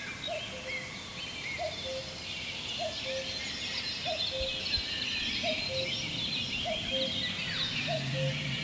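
Several songbirds singing and calling at once, with a low, even call repeated about once a second beneath them.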